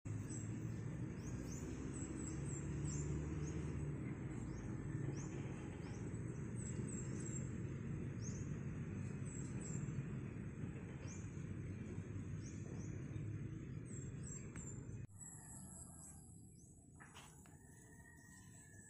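Bird chirping over a steady low rumble of background noise: a string of short, high, falling chirps, often several in quick succession. About 15 seconds in the rumble cuts off abruptly and it turns quieter, with a few longer, steadier bird calls.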